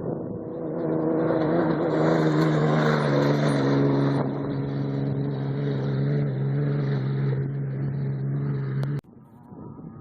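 Off-road race vehicle's engine running hard at speed: it builds over the first couple of seconds, then holds a steady high note. It cuts off suddenly about nine seconds in.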